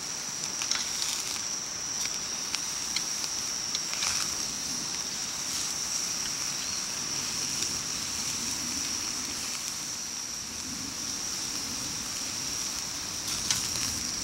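Outdoor campsite ambience: a steady high-pitched drone with scattered small crackles and clicks over a faint even rushing.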